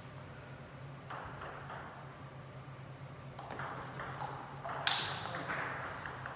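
Table tennis ball clicking off rackets and the table in a rally: a few light ticks about a second in, then a quick run of hits, the sharpest and loudest near five seconds in, with a short ring in the hall after it.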